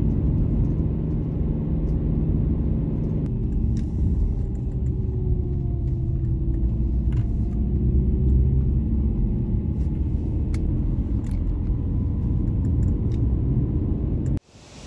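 Steady low road and engine rumble of a moving car, heard from inside the cabin, with faint slow changes in engine pitch. It cuts off suddenly near the end.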